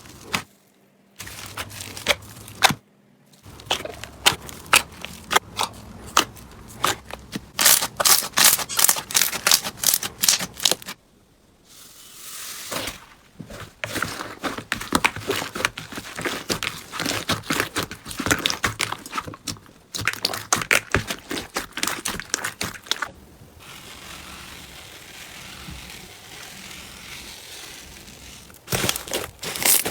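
Slime being squeezed and pressed by hand, giving dense runs of crackling and popping, broken by a few short silent gaps between clips. A softer, steady hiss-like stretch comes about three quarters of the way through.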